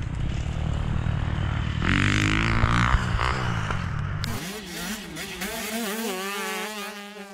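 Onboard sound of a Husqvarna FC350's four-stroke single-cylinder engine running and revving as the bike is ridden. About four seconds in the engine sound cuts off abruptly, leaving a quieter wavering steady tone that fades out near the end.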